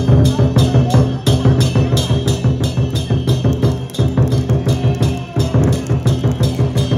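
Lion dance percussion: a large Chinese lion dance drum beaten on a steady driving beat, with clashing cymbals ringing on about three strikes a second.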